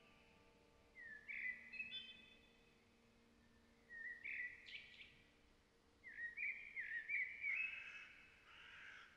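A songbird singing three short phrases of clear whistled notes, a few seconds apart, the last phrase longer than the others.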